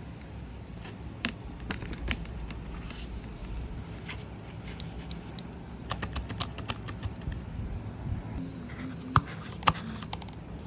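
Irregular light clicks and taps of small objects being handled, with two sharper clicks near the end.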